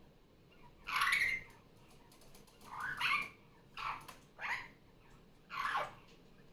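Superb parrot (Barraband parakeet) calling: five short calls, the loudest about a second in, then a group of three from about three to four and a half seconds, and a last one near the end.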